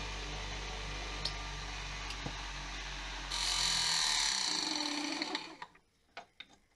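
Electric sharpener with a diamond cup wheel running with a steady hum. About three seconds in, a router bit's flat face is pressed against the diamond cup, giving a loud grinding hiss for about two seconds while the motor is switched off and winds down. A few light clicks follow as the bit is handled.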